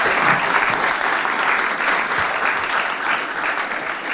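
Audience applauding, a room full of people clapping steadily, easing off slightly near the end.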